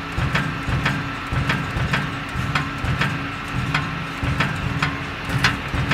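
Projection-mapping show soundtrack played over loudspeakers: mechanical-sounding sound design of sharp clicks and low thumps, about two a second, over a steady held tone.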